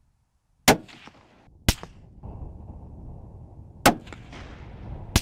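Four sharp rifle shots, each with a short echo.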